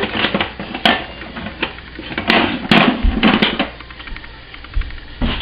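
Hard kitchen objects knocking and clattering against each other and a surface, about eight irregular sharp knocks with short scrapes between them.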